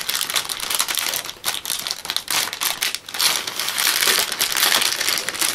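Thin clear plastic bag crinkling and rustling with dense crackles as it is pulled and worked back over a tray of cards.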